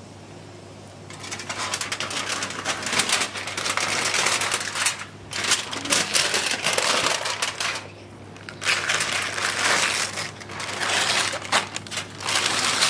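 Aluminium foil and baking paper crinkling and tearing as they are cut open with a knife and pulled back by hand. The crinkling starts about a second in and comes in irregular stretches, with brief breaks near the middle.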